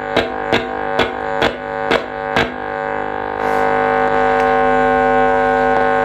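Steady buzzing drone from a JBL speaker driven by a six-transistor amplifier board while the input wire is being handled, before any music is fed in. Sharp clicks come about twice a second through the first half, and the drone grows louder about three and a half seconds in.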